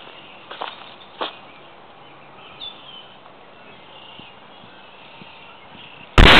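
Quiet spring woodland with a few faint bird chirps and a couple of brief rustles of dry leaf litter in the first second or so. Near the end a sudden, very loud hiss cuts in.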